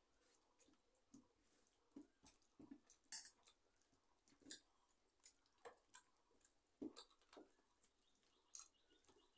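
Faint eating sounds: fingers mixing rice in a steel plate and chewing, heard as scattered soft clicks and smacks at irregular intervals, the loudest about three seconds in.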